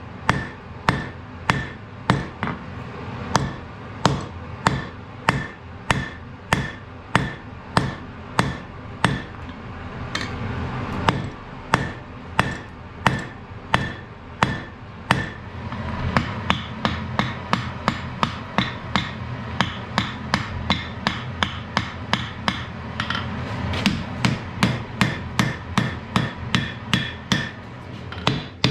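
Blacksmith's hammer striking metal on an anvil in a steady rhythm of about two blows a second, each with a short ring. About halfway through, the blows quicken to nearly three a second and ring brighter.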